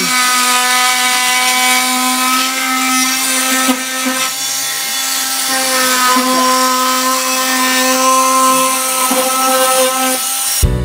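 Oscillating multi-tool cutting an opening in drywall: a steady high whine over a scraping hiss, cutting off just before the end.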